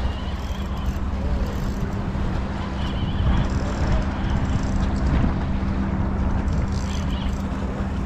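Strong wind buffeting the microphone, with a steady low hum underneath.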